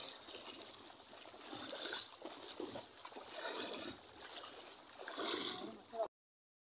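Water sloshing and splashing as a group of people wade through deep floodwater, rising and falling unevenly. It cuts off to silence about six seconds in.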